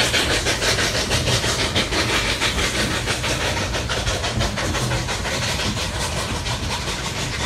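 Narrow-gauge steam locomotive working ahead of the train, its exhaust chuffing in a quick, steady beat that grows fainter in the second half, over the rumble of the coaches rolling on the rails.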